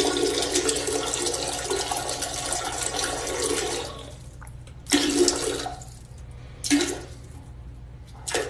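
Toilet flushing: a loud rushing of water for about four seconds, followed by three shorter bursts of noise.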